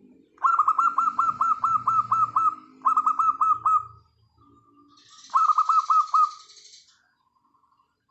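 Birdsong: three loud bursts of rapid repeated down-slurred notes, about eight a second, over softer low cooing of zebra doves (perkutut).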